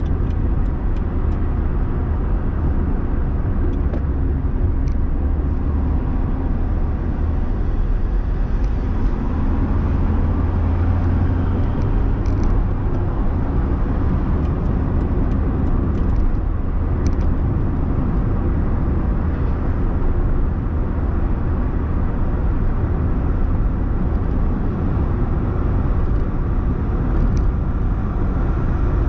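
Car driving, heard from inside the cabin: a steady low rumble of engine and tyres on the road, with a few faint clicks.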